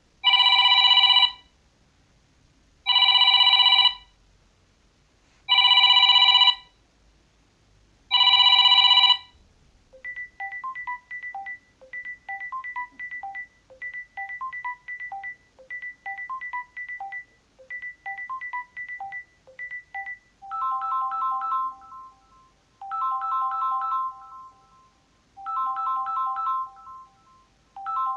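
Samsung Galaxy A12 ringtones played one after another. First comes a loud ring of four identical chiming bursts about two and a half seconds apart. About ten seconds in it changes to a softer tinkling tune of short repeating notes, and about twenty seconds in to a third tone that repeats in bursts of chords.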